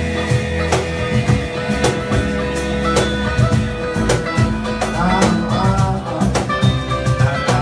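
A live band playing a song: strummed acoustic guitar, electric bass and electric guitar over a steady drum beat, with a man singing.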